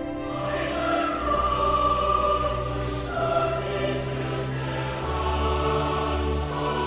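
Choral music: a choir singing long held notes over a low sustained bass.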